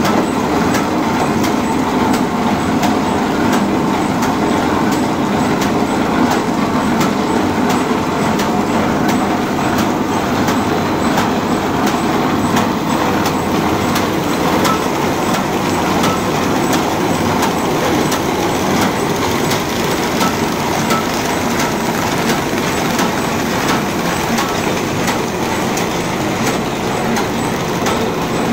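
Paper bag making machine running at speed: a steady mechanical clatter with a sharp, regular tick about twice a second.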